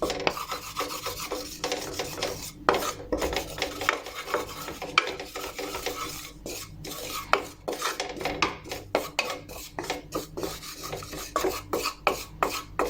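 A spoon stirring and scraping flour and ghee around a pan, a roux being cooked for white sauce, with many quick irregular scrapes and clicks against the pan.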